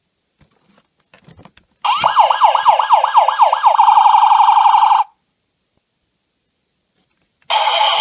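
Tonka toy fire truck's electronic siren, set off by a few faint button clicks. It warbles in fast rising sweeps, about four a second, then holds one steady tone and cuts off suddenly. Near the end a second loud electronic sound effect starts from the toy.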